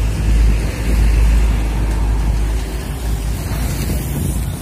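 Heavy trucks and motorcycles passing close on a highway, a loud steady road rumble with a deep low drone underneath.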